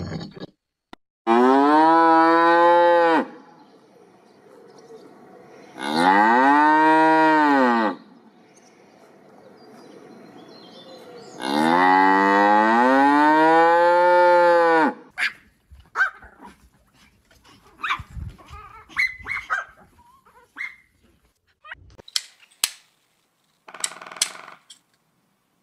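Cattle mooing: three long, drawn-out moos, the last the longest, then scattered clicks and taps near the end.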